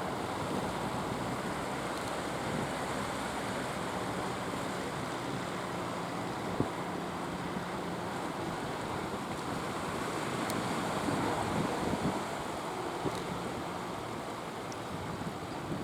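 Steady rush of sea surf and wind buffeting the microphone, with a fishing boat's engine running faintly underneath at times.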